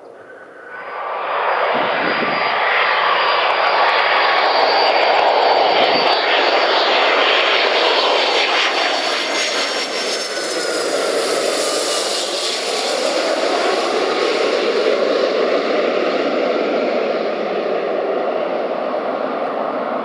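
Boeing 757 jet engines passing low overhead on landing approach. A loud jet rush with a high whine sets in suddenly about a second in, and the whine's pitch falls partway through as the aircraft passes.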